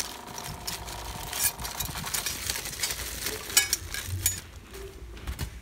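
Hands rummaging through a cardboard box of parts: plastic bags crinkling, with scattered crackles and small clicks and knocks as parts are handled.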